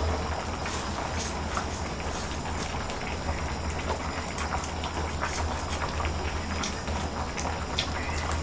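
A large pot of gamjatang (pork-bone stew with aged kimchi) bubbling on a portable gas burner, a steady hiss full of small scattered pops, over a steady low hum.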